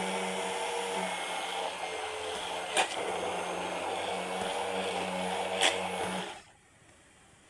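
Braun hand-held stick blender running steadily while it blends a creamy liquid in a plastic beaker, with two brief sharp clicks. The motor stops about six seconds in.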